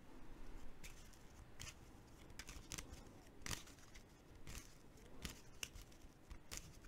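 Faint, irregular light clicks and ticks, a dozen or so scattered over a few seconds, against a quiet room.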